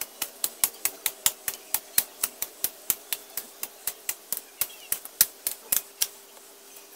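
A hand blade hacking through weeds and grass in sped-up footage: a fast run of sharp chopping strikes, about four a second, that stops about six seconds in.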